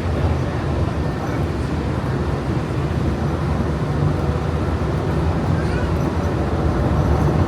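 Walt Disney World monorail heard from inside the car: a steady rumble and hum of the train running along its beam.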